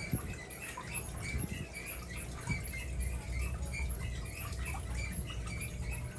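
Aquarium filtration running: a steady trickle and patter of falling water with many small irregular splashes over a low pump hum.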